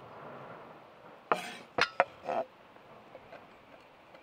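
Chef's knife on a wooden cutting board, dicing a yellow tomato: a sharp knock with a short scrape, two more quick knocks, then another brief scrape.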